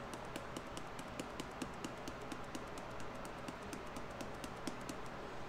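Faint, rapid light ticking, about four to five taps a second, from a plastic jar of ground black pepper being shaken over a metal measuring spoon.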